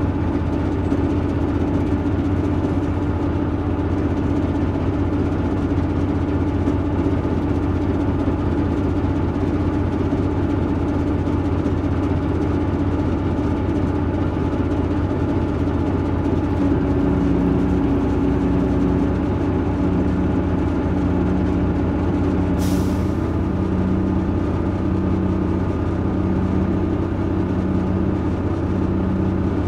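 Leyland Olympian double-decker bus's Cummins LT10 diesel engine running at a steady speed, heard from on board. About 17 seconds in, a low tone starts switching on and off about once a second, and about 23 seconds in there is a short, sharp hiss of air.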